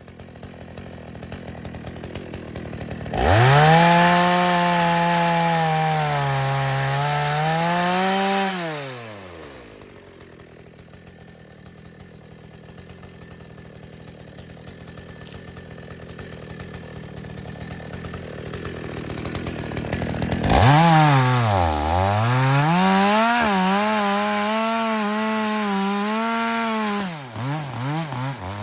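Two-stroke chainsaw revved up sharply about three seconds in and held at high speed, its pitch sagging and recovering, then dropping back toward idle. It is revved hard again about twenty seconds in with dips in pitch, and gives a few short throttle blips near the end.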